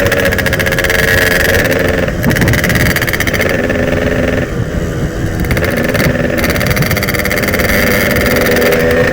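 Yamaha RX-King single-cylinder two-stroke motorcycle engine running hard while riding. The revs dip briefly about two seconds in, fall again around the middle, then climb back up.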